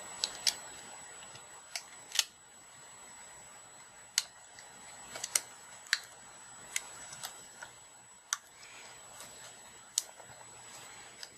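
About a dozen small, sharp clicks and taps, scattered irregularly, as fingers and fingernails work a touchscreen flex cable into its flip-tab connector on a tablet's circuit board. The clicks sit over a faint steady hiss.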